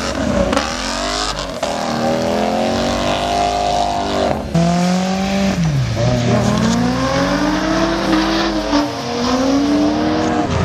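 Car engine revving hard under acceleration, its pitch climbing and then falling several times as it shifts and lifts.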